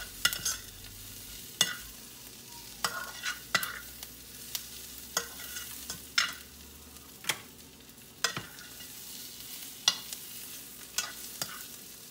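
Metal spoon stirring sliced onions and green peppers in a stainless-steel skillet, with sharp clinks and scrapes of spoon against pan every second or so. Under it, the softened vegetables sizzle steadily as they sauté and brown.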